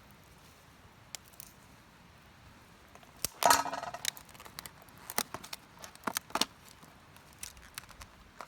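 Small hard objects, metal-sounding, clinking and rattling: a louder jangling clatter about three and a half seconds in, then scattered sharp clicks.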